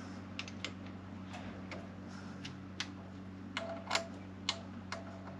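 Socket ratchet clicking in short, uneven strokes while undoing the cover screws of a marine diesel's raw-water impeller pump, over a steady low hum. The clicks are loudest a little before four seconds in.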